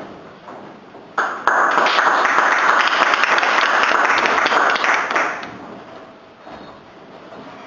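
Audience applauding: it starts abruptly about a second in, holds for about four seconds, then dies away.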